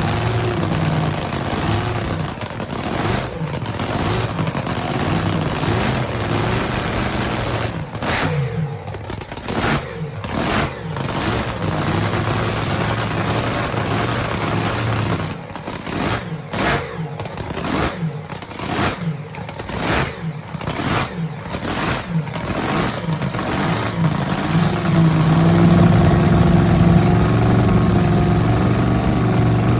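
Drag boat engine running after being fired up, idling rough and steady, with a string of sharp throttle blips through the middle stretch, then running louder and steadier near the end.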